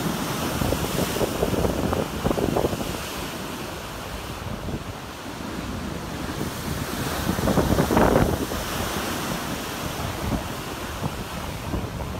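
Heavy ocean surf breaking and washing through churning whitewater, with wind buffeting the microphone. The loudest wave crash comes about eight seconds in.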